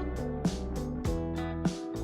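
Music with a steady drum beat and sustained pitched notes.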